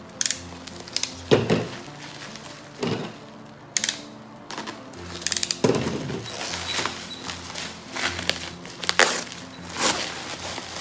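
Plastic bubble wrap crinkling and rustling in irregular bursts as it is cut and pulled off a cardboard box, over soft background music.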